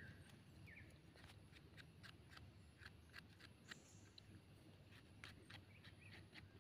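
Faint, irregular scraping clicks of a small knife blade paring soil off the stem of a wild bolete mushroom.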